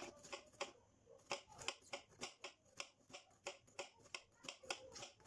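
Knife slicing a bitter gourd into thin rounds on a cutting board: faint, quick taps of the blade on the board, about three a second.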